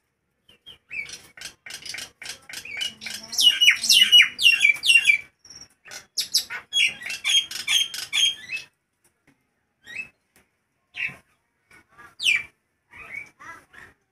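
Nias hill myna calling loudly: a rapid run of short, shrill whistled notes lasting a few seconds, a second run after a brief pause, then scattered single calls.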